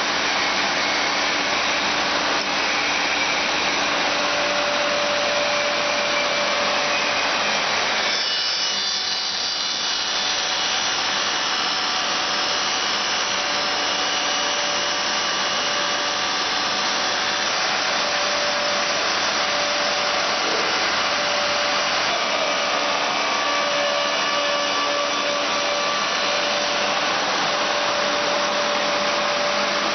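CNC barrel-stave machine running, its rotating cutter heads shaping a wooden stave, with the steady rush of dust extraction. A steady machine whine and noise that eases briefly about eight seconds in.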